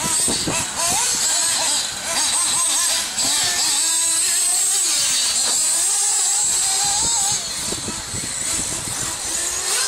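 Small nitro engines of radio-controlled off-road buggies revving up and down with a high-pitched whine and a steady hiss over it.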